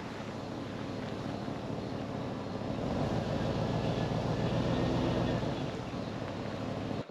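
GMC Yukon SUV's engine running at low speed while the vehicle is backed into a campsite, growing a little louder midway. It stops abruptly near the end.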